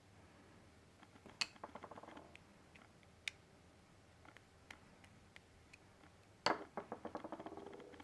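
Small metal parts of a vape mod's fire button clicking and rattling as it is taken apart: twice, a sharp click followed by a quick run of fading rattles, the louder about two-thirds of the way through, with a single light click between them.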